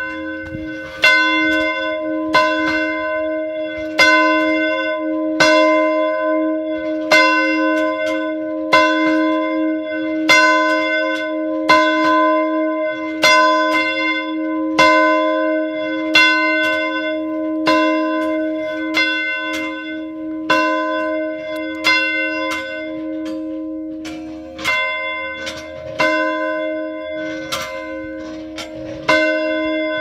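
A single church bell tolling, its clapper striking about every second and a half, with the ring carrying on between strikes. Near the end the strikes come unevenly, some close together. It is rung as the evening call to prayer.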